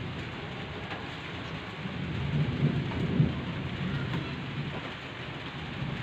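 Steady rain falling, an even hiss with a low rumble, swelling briefly about two to three seconds in.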